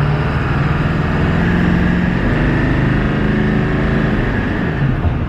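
Ford 7.3 L Power Stroke V8 turbo-diesel of a 2000 F-250 revved hard, heard from the cab. The engine note climbs and holds high, then drops back near the end.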